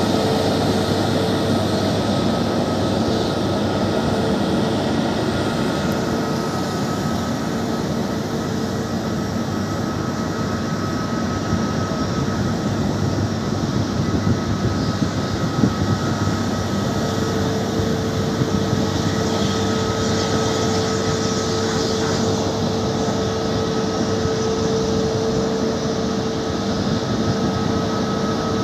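Jet airliner's turbofan engines running at taxi power: a steady drone with a constant high whine over it.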